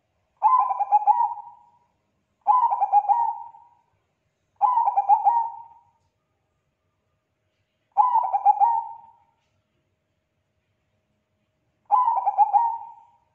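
Bangkok-type zebra dove (perkutut) cooing: five phrases, each a quick stuttering run of notes that trails off. The first three come about two seconds apart, the last two after longer pauses.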